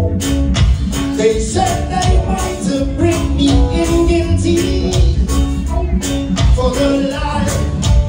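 Band music with singing: held sung notes over a strong bass line and a steady beat.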